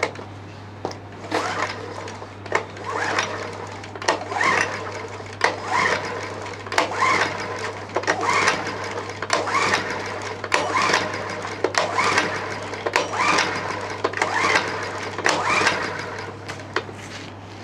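Honda portable generator being pull-started cold with the choke on: the recoil starter cord is yanked about once a second, each pull a short whirr of the engine turning over, and the engine does not catch.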